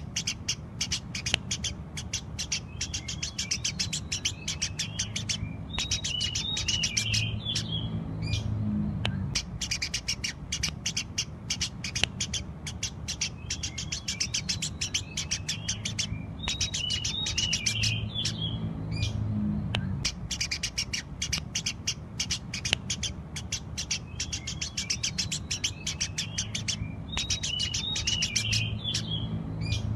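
Eurasian tree sparrows chirping rapidly and continuously, many short sharp chirps with brief warbling phrases mixed in, the same stretch of chirping repeating about every eleven seconds.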